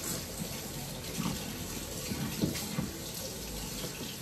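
Steady hiss of running water in the background, as from a tap running into a sink.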